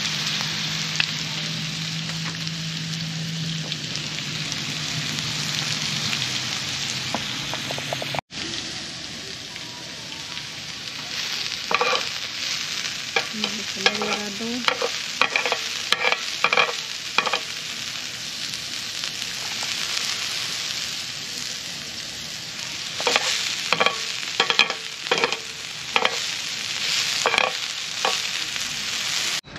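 Pork belly and steak sizzling on a griddle over a portable gas burner, a steady hiss with a brief break about eight seconds in. From about eleven seconds on, a utensil clicks and scrapes against the griddle as the meat is turned and stirred.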